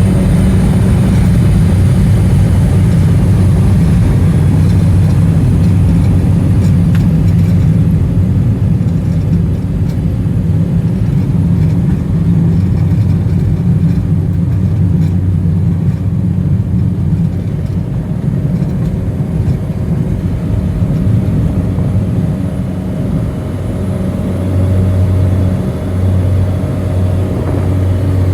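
Cessna Caravan's single Pratt & Whitney PT6A turboprop running loud and steady: a deep propeller drone with a thin high turbine whine that climbs slightly in the first few seconds.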